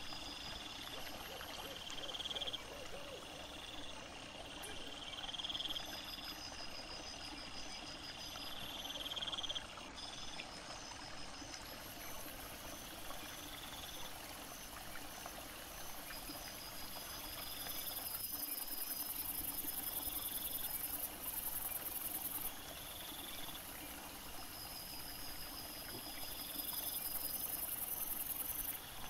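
Night insects, crickets, trilling in repeated phrases about a second long, over a steady very high hiss.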